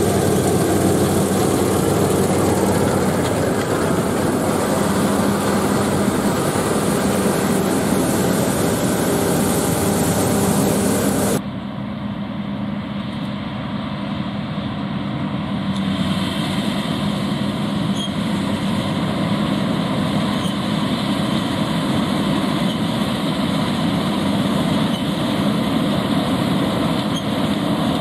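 John Deere combine harvester cutting wheat: a steady engine and threshing-machinery noise with a low hum. About 11 seconds in the sound drops abruptly to a quieter, duller drone with less hiss.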